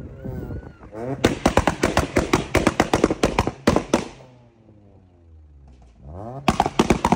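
A tuned car's engine revved hard, its exhaust firing a rapid string of pops and bangs, about seven a second, for about three seconds. The revs then fall away and climb again, and a second short burst of pops comes near the end.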